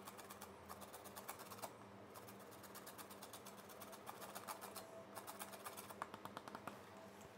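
Lime peel being zested on a metal box grater: faint, quick rasping strokes across the teeth, in three runs with two short pauses.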